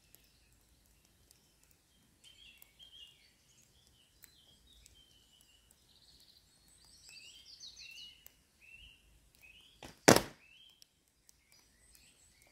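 A single loud, sharp thud from a longbow shot about ten seconds in, over wild birds singing throughout.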